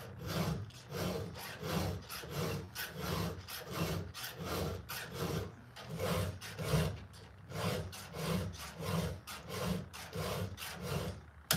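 Round file rasping across the cutter teeth of a chainsaw chain in even hand strokes, about two a second: a touch-up sharpening of the cutters. A sharp click sounds near the end.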